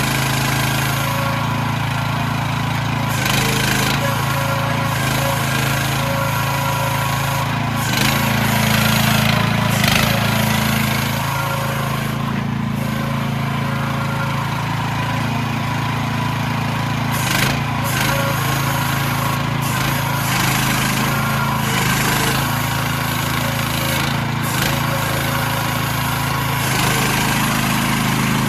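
Small single-cylinder 420cc gasoline engine of a mini excavator running steadily as the machine tracks and works its hydraulic boom, its note rising a little around a third of the way in and again near the end as the hydraulics load it. Intermittent rattling and clatter from the machine runs through it.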